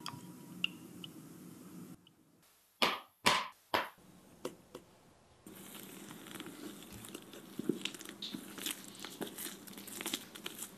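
Wire whisk stirring chocolate batter in a ceramic bowl, followed by three loud short knocks about three seconds in. From about halfway, plastic-gloved hands knead and stretch soft dough, the gloves crinkling with many small crackles.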